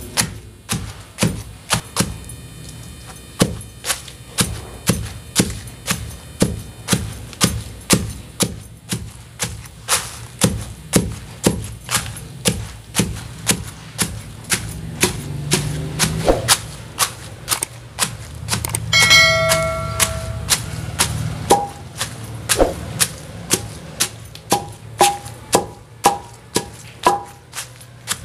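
Long wooden pestle pounding whole dried red chillies with salt in a metal mortar: steady, regular thuds at roughly three strokes every two seconds, the first dry crushing before water is added.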